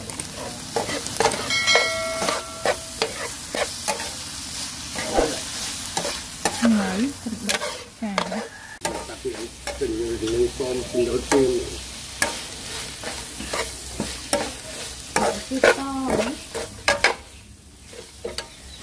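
Metal spatula scraping and knocking against a wok as pieces of eel are stir-fried, with the food sizzling in the hot pan.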